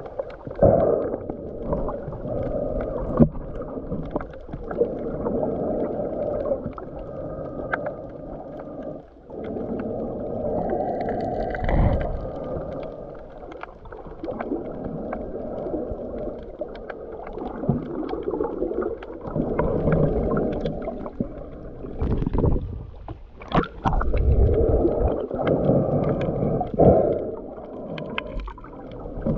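Muffled underwater sound from a submerged action camera: a rushing rumble of water that swells and fades every few seconds, with scattered small clicks and knocks.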